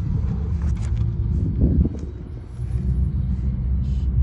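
An off-road Jeep engine running steadily at a constant speed, a low hum. A couple of light clicks come in the first two seconds.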